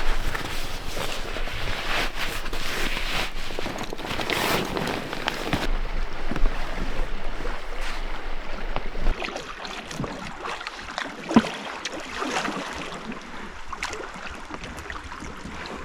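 Water rushing and splashing around a packraft on a river, with wind noise on the microphone. It gets quieter about nine seconds in.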